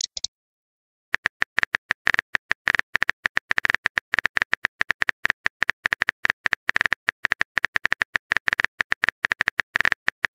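Phone keyboard key-tap clicks from a texting app, coming in a quick, irregular run of several short clicks a second as a message is typed, starting about a second in.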